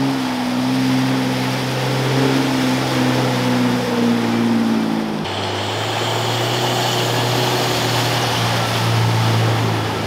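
Four-wheel drives driving through a muddy water hole, each engine running under throttle with water splashing around the wheels. About five seconds in the sound cuts to a second vehicle, a Suzuki Vitara, its engine holding a steady tone as it pushes through the mud.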